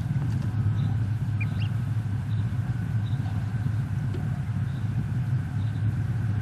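Steady low rumble, with a few faint high peeps of wood duck ducklings about a second and a half in.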